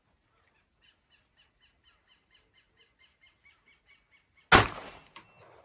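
A bird calls in a series of short chirps, about four a second and slowly getting louder, then a single shot from a Taurus G3 9mm pistol cracks sharply about four and a half seconds in, firing a hand-loaded 125-grain round with a hot 5.8-grain powder charge; a couple of small clicks follow.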